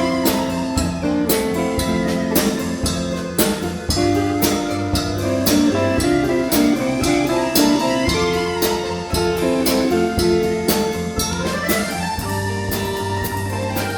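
A Russian folk-instrument ensemble plays a lively instrumental piece live. Sustained melody notes sit over a steady, quick beat of percussive strokes.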